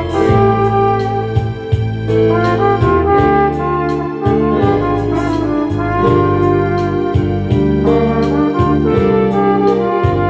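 Flugelhorn playing a slow melody of held notes over a backing track with a bass line and a steady tick of percussion about four times a second.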